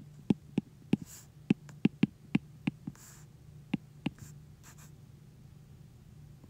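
Stylus tip tapping and clicking on an iPad's glass screen while words are handwritten: about a dozen sharp, uneven ticks over the first four seconds.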